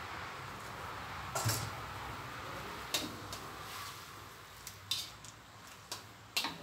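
Metal ladle knocking and scraping against a wok and a metal bowl, about six sharp clinks spread over the few seconds, over a steady hiss that fades toward the end.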